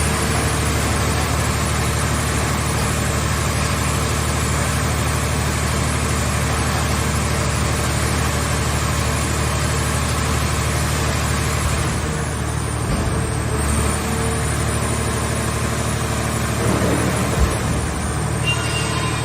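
Engine of a mobile car-shell baler running steadily under a continuous mechanical noise, with one short knock near the end.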